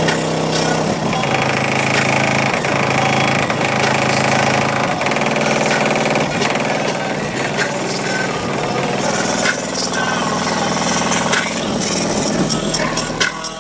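Loud bass-heavy music played through two SoundQubed HDC3 18-inch subwoofers powered by a Rubicon 2500 amplifier, heard from outside the truck, with deep steady bass notes and rattling throughout.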